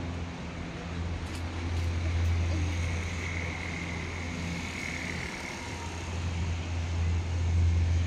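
Road traffic: a steady low engine rumble with a faint hum, swelling about two seconds in and again near the end.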